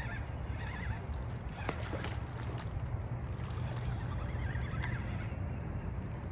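A hooked catfish splashing and thrashing at the water's surface as it is reeled in to the riverbank, with a few sharp splashes about two seconds in.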